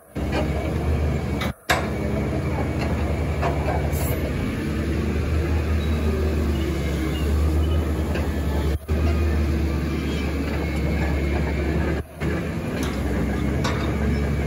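Volvo EC300DL tracked excavator's diesel engine running steadily under hydraulic load as the boom and arm move and the upper structure slews. The sound drops out briefly about three times.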